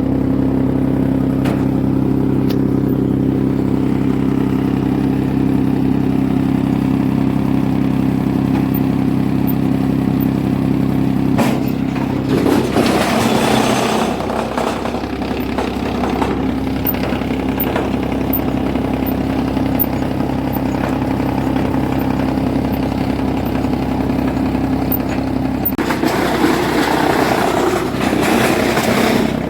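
Heavy-duty wood chipper machine running steadily with a low, even hum, broken twice by spells of harsher, louder noise: once around the middle and again near the end.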